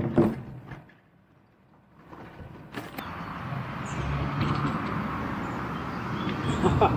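Bicycle riding noise: tyres rolling along the path and wind on the microphone, building up after a brief quiet moment, with a sharp click about three seconds in.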